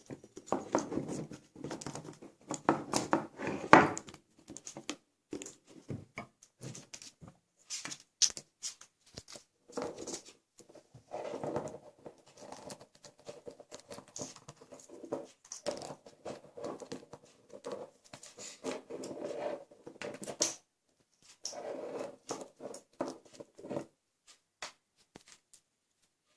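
Grey parrot playing with a toy train: irregular clicks, taps and rattles of beak on plastic, broken by a few stretches of a low buzzing hum lasting a second or two.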